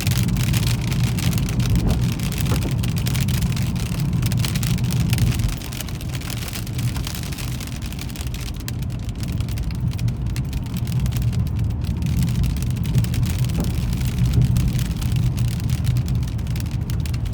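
A car driving on a wet, wintry road, heard from the car: a steady low rumble of engine and tyres, with a high crackling hiss of wet tyres and light precipitation on the car over it. The loudness dips a little about five and a half seconds in.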